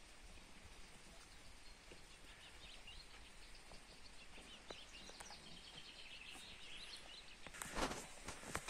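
Faint birdsong: scattered high chirps and short phrases over a low, quiet outdoor hush. A brief rustle comes about three-quarters of the way through.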